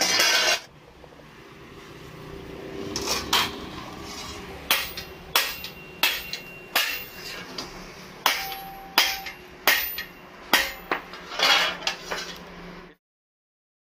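Small hand hammer striking square steel plates, blanks for kassi spade blades, laid on a metal block: about a dozen sharp metallic strikes at an uneven pace from about five seconds in, some ringing briefly.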